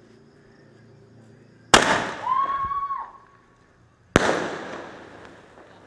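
Two loud firecracker bangs about two and a half seconds apart, each dying away over a second or so.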